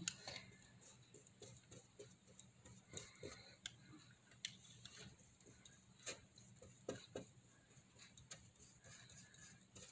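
Near silence, with faint scattered taps and light scrapes of a paintbrush dabbing black acrylic paint onto wooden letters.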